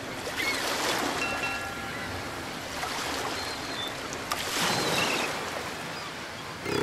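Ocean waves washing and surging in gentle swells, with a few faint short high tones over them.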